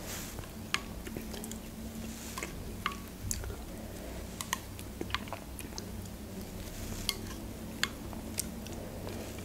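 Soft close-up eating sounds: scattered small wet mouth clicks and smacks while eating melted ice cream off a plastic spoon, with the spoon now and then scraping a glass plate. A faint steady low hum lies underneath.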